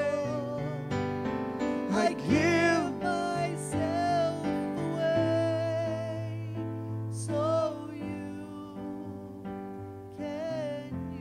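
Slow, soft worship music: sustained keyboard chords with a voice singing long held notes in short phrases, growing quieter toward the end.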